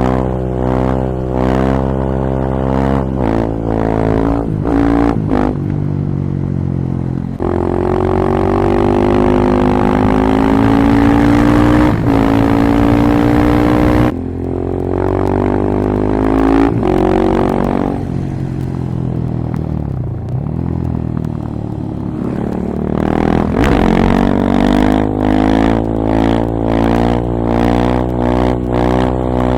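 Husqvarna 701 single-cylinder engine with an Akrapovic silencer and open airbox, pulling through the gears under the rider. Its note climbs in one long rise, drops suddenly about halfway, then rises and falls again.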